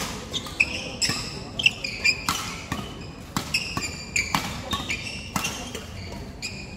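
Badminton rackets striking shuttlecocks and court shoes squeaking on the hall floor during rallies: an irregular, rapid run of sharp cracks mixed with short high squeaks.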